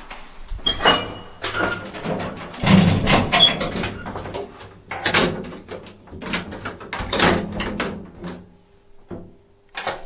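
Elevator sounds: a busy string of knocks, clunks and rattles from the car and its sliding doors, with a couple of short high tones in the first few seconds and a low steady hum near the end.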